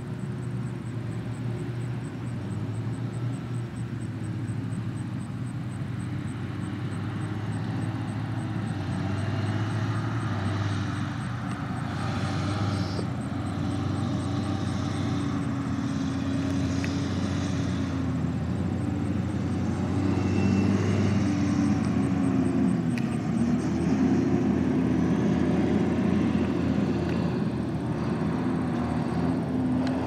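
Combine harvester and grain-cart tractor engines running steadily while shelling corn, a low drone that grows louder as the machines come closer.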